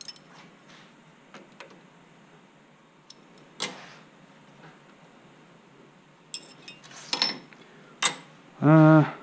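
Scattered metallic clicks and clinks of tools and lathe parts being handled at a metal lathe. There are a few isolated taps, and a cluster of ringing metal clinks about six to seven seconds in.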